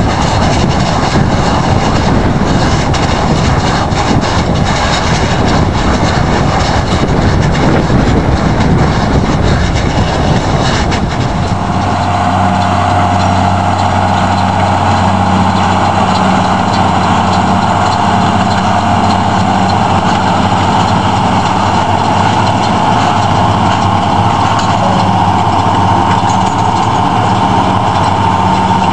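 Renault tractor's diesel engine and Welger combined round baler-wrapper running while baling and wrapping haylage: a rough, noisy rumble for the first ten seconds or so, then a steadier drone with a low hum and a higher whine from about eleven seconds in.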